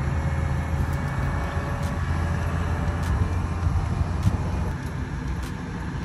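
A crane's engine running steadily with a deep, even rumble while it lowers a heavy load, with a few faint ticks over it.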